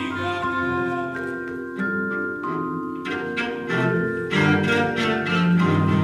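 Live instrumental music: a bowed cello playing with a mallet keyboard instrument and percussion, the struck notes getting busier about halfway through.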